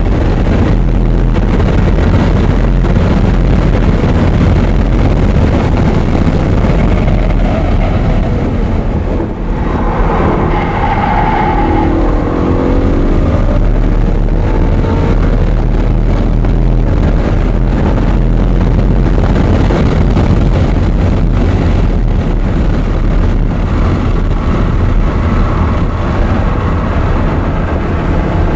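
Audi R8's engine running hard on a race track lap, heard over heavy wind and road rumble on the microphone. Engine tones stand out more plainly for a few seconds about ten seconds in.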